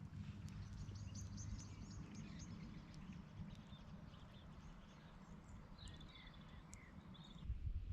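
Faint songbirds chirping and twittering, in short high calls that come in two spells, over a low steady outdoor rumble. The rumble grows louder near the end.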